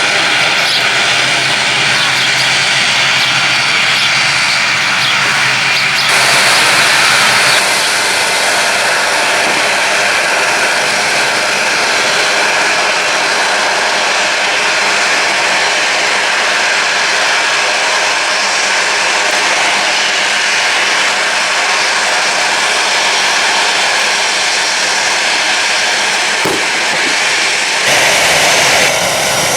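Jet airliner engines running loud and steady: a dense rushing noise with a faint whine, which shifts suddenly in tone about six seconds in and again near the end.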